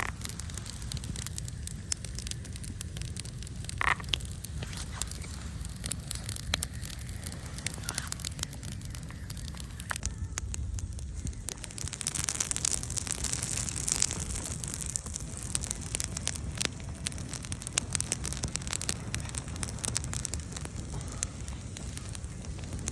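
Wood campfire crackling, with irregular sharp pops and snaps over a steady low rumble; the hiss swells for a few seconds around the middle.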